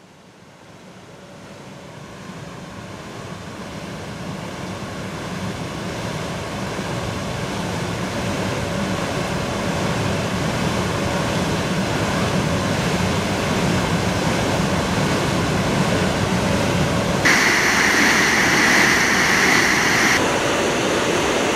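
Rushing, splashing water from large Archimedean screw pumps turning, water spilling off their flights, fading in gradually and growing louder. About three seconds before the end a brighter, hissier splashing comes in for a few seconds.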